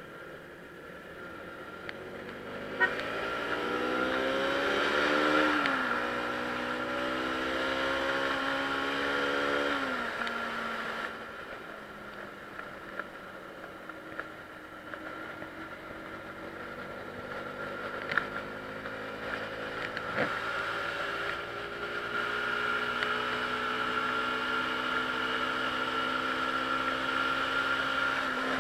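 Motorcycle engine accelerating through the gears: its pitch climbs, drops back at an upshift about five seconds in and again about ten seconds in, then holds steady at cruising speed.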